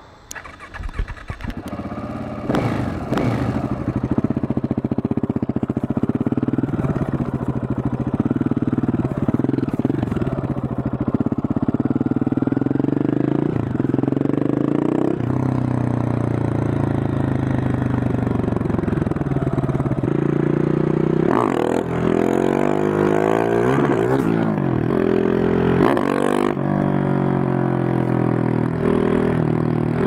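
KTM 690 SMC R supermoto's single-cylinder engine through a Remus slip-on exhaust, starting about a second in and then running as the bike rides off. In the second half the revs repeatedly rise and drop as it pulls through the gears.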